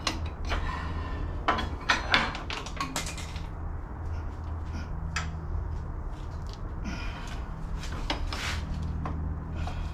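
Scattered metallic clicks and clanks of hand tools and a threaded pulley installer on a power steering pump pulley, in clusters near the start and again near the end, over a steady low hum.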